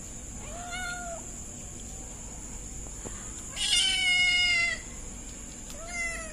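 Kitten meowing three times: a short call, then a longer and louder one, then another short one near the end.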